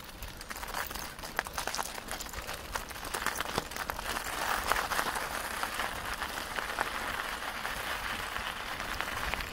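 Bicycle tyres rolling over a leaf-strewn dirt path: a steady crackling crunch of many small irregular clicks over a low rumble, a little louder from about four seconds in.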